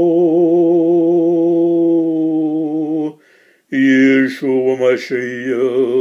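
A solo male voice chanting liturgical prayer, holding one long note with a slight waver for about three seconds. After a short breath, the chant resumes on new syllables.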